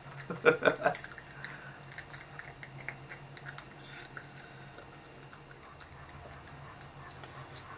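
Miniature poodle crunching dry kibble taken from a hand, as faint scattered small crunches. A short louder sound comes about half a second in.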